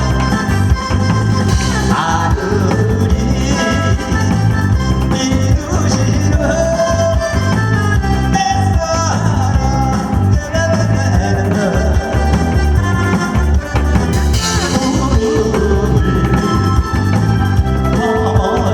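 Korean trot song performed live: a singer over a loud backing track with a steady, bouncy beat.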